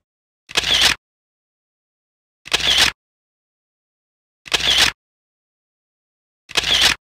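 An edited-in sound effect played four times, evenly about two seconds apart, each a short sharp burst lasting about half a second, with dead silence between.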